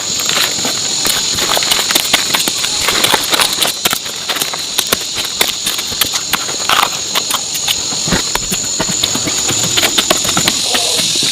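A steady high-pitched insect drone with many sharp clicks and knocks scattered through it.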